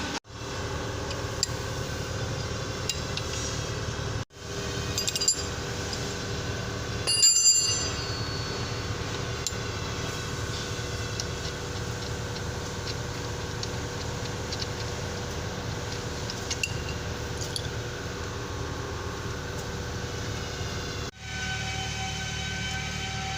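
Light metallic clinks of tools on metal, loudest about seven seconds in, over a steady mechanical hum. The sound cuts out briefly three times.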